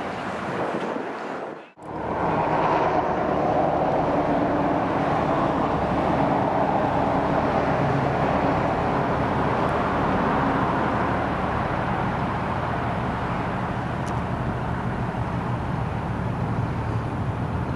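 Steady engine and road noise of a moving car. It drops out sharply for a moment about two seconds in, then runs on evenly.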